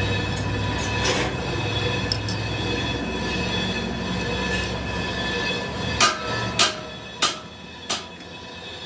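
Workshop machinery running steadily with a squealing whine. About six seconds in the low hum drops away and four sharp, ringing metal strikes follow, roughly two thirds of a second apart.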